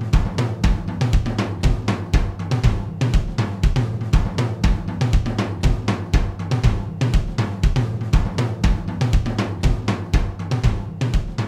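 Intro music built on a steady drum-kit beat, with bass drum, snare and hi-hat hits repeating evenly over a low bass line.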